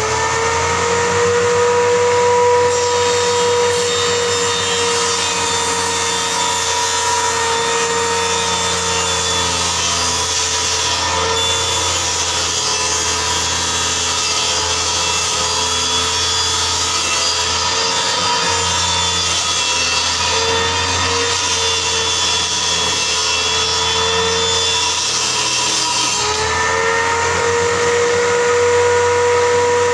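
Electric circular saw mounted under a table as a table saw, running with a steady high whine and then ripping a long board. The whine sags and wavers in pitch under the load for most of the cut and rises back to full speed at about 26 seconds as the cut finishes.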